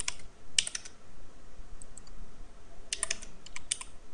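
Computer keyboard keys clicking as numbers are typed, in short quick runs of keystrokes: a few in the first second, a faint tap near two seconds, and a denser run about three seconds in.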